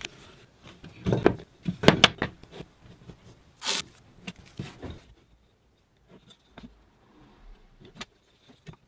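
Masking tape being pulled off and pressed down over the joints of a wooden frame, with rustling and light knocks of hands and wood parts on the bench, and one sharp tearing hiss near the middle. After that only a few faint ticks and taps.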